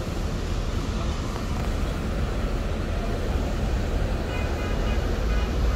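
A large diesel coach engine idling with a steady low rumble.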